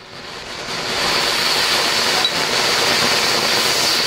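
Colourful Ashoka anar (ground fountain firework) spraying sparks with a loud, steady hiss that builds up over the first second, a thin high tone running through it.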